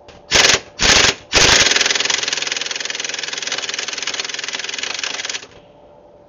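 3/8-inch impact wrench hammering through a swivel socket on a stuck bottom brake caliper bolt: two short bursts, then one long run of about four seconds that stops suddenly.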